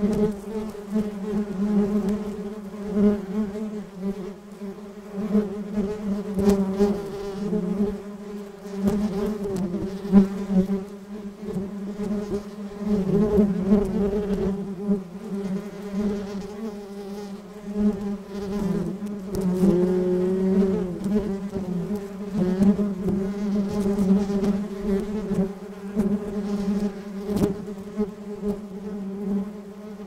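Bees buzzing together in a steady hum that swells and dips in loudness, its pitch wavering slightly.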